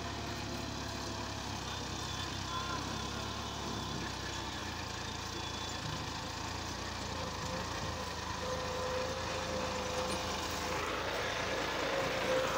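Tractor's diesel engine running steadily as it pulls a loaded soil trolley, getting a little louder in the second half.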